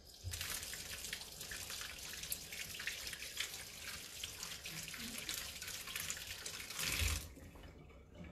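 Tap running as hands are washed under it: the water comes on just after the start, runs steadily, swells briefly and is shut off about seven seconds in.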